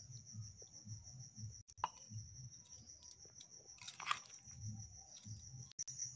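A steady high-pitched cricket trill, with soft low knocks. There is a small click about two seconds in and a short clatter about four seconds in.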